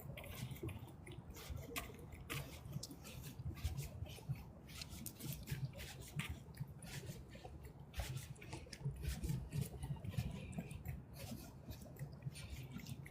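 Small water sounds at a lake's edge, irregular light drips and splashes, over a low steady rumble.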